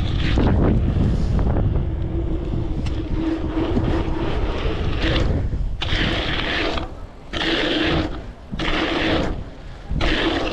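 Wind buffeting the helmet camera's microphone over the rumble of mountain bike tyres rolling on a BMX track, with a faint steady hum at times. The noise drops off briefly three times in the second half.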